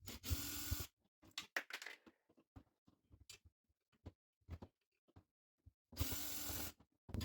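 A cordless drill running in two short bursts, just after the start and again near the end, backing out the ice maker's screws, with light clicks and handling knocks in between.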